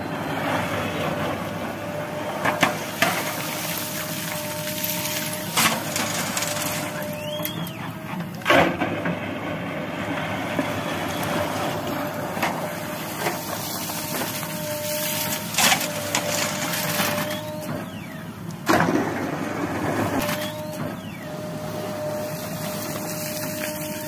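JCB 3DX backhoe loader's diesel engine running under load while the backhoe digs mud, with a hydraulic whine that comes and goes. Several sharp knocks and crunches of the bucket biting into and dumping the earth break through the engine noise.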